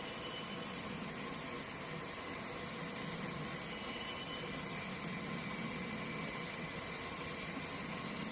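Steady, high-pitched insect drone, such as crickets or cicadas, over an even background hiss; no distinct bird call stands out.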